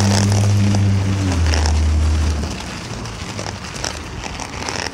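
Low engine hum of a nearby motor vehicle that drops a little in pitch just over a second in and dies away about halfway through. After it come wind rumble and crackling handling noise on the phone's microphone.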